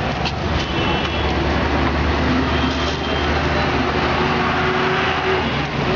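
Steady street noise of passing traffic, with a low rumble through most of the stretch.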